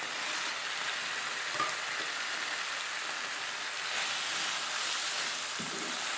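Chicken cubes and chopped garlic sizzling in hot oil in a frying pan, a steady frying hiss, with a couple of faint clicks.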